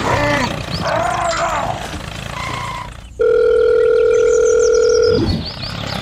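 A loud, steady electronic beep at one pitch, held for about two seconds, starting about three seconds in and ending with a short downward swoop. Before it come brief voice-like sound effects that rise and fall in pitch.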